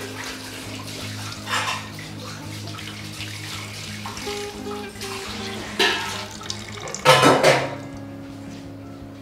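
Liquid pouring and being squeezed from a cloth strainer, splashing into a steel bowl in a few short gushes, the loudest about seven seconds in. Background music with sustained notes plays underneath.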